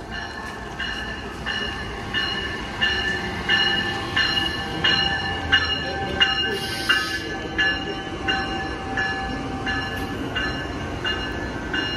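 Amtrak ACS-64 electric locomotive passing along a station platform with its bell ringing steadily, about three strikes every two seconds, over the rumble of the train. A steady whine rises out of the rumble while the locomotive goes by.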